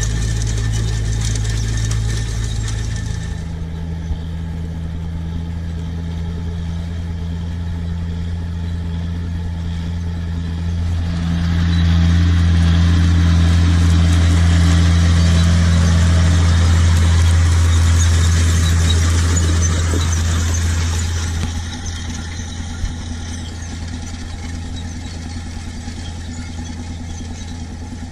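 John Deere 6820 tractor's diesel engine running steadily under load as it pulls a seeder through stubble. Much louder for about ten seconds in the middle as it passes close, then quieter toward the end.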